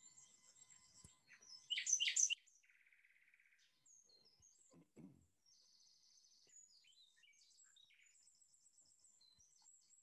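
Recorded common nightingale song: varied phrases with a loud burst of rich notes about two seconds in, then a buzzy trill and runs of rapid repeated high notes.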